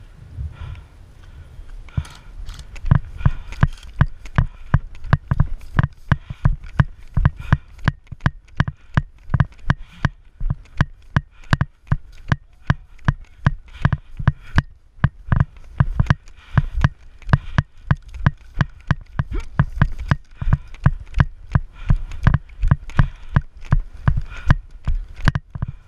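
Running footsteps on dry grass, about three strides a second, each footfall a low thump with a sharp click from jostled gear. The steady running starts about two seconds in.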